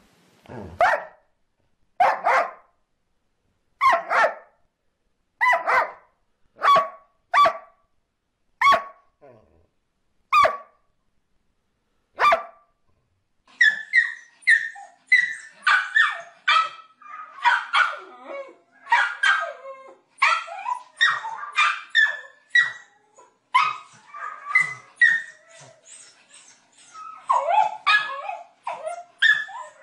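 A dog barking in single barks, about nine in all, one every one to two seconds. About 13 seconds in, a small white fluffy dog at a closed door takes over, barking in a rapid, near-continuous run of several barks a second.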